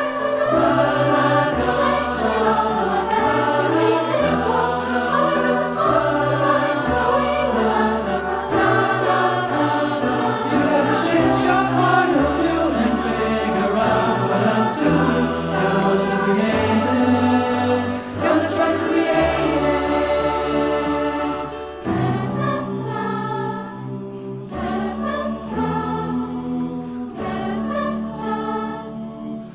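Mixed choir, a virtual choir of separately recorded voices mixed together, singing in close harmony with piano accompaniment. About two-thirds of the way through the texture thins and the music gets quieter.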